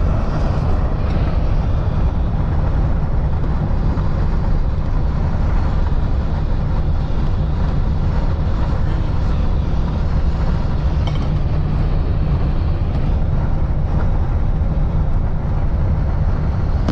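A 1997 Ford F-350 with a 460 big-block V8 driving at a steady speed while towing a boat. Its engine, road and wind noise make a loud, even rush, heaviest in the low end.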